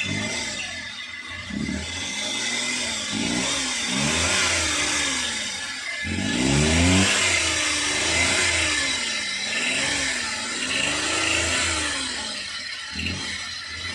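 Suzuki K6A three-cylinder engine being revved up and down repeatedly, its note rising and falling about once a second, while it is checked for a misfire and hard starting.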